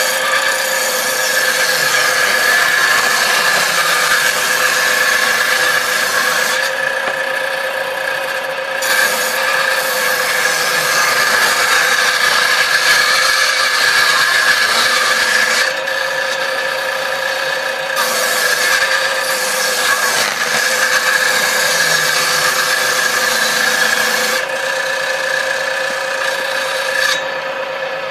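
Homemade table saw driven by a salvaged water-pump motor, its blade running with a steady whine while wooden strips are ripped through it: repeated cuts of several seconds each, with the blade spinning free in the short gaps between.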